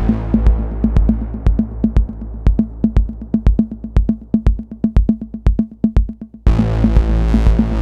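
Techno pattern played on a Novation Circuit Tracks groovebox: steady, quick drum-machine hits over a low synth bass and held chords. A dense sustained synth layer fades away over the first few seconds and comes back in about six and a half seconds in.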